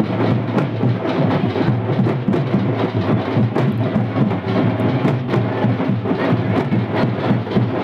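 Loud percussion-driven dance music with a steady, even beat of sharp drum strokes.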